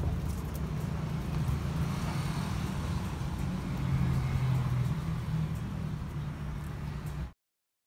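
A motor vehicle's engine running with a steady low rumble, a little louder about four seconds in, cutting off abruptly near the end.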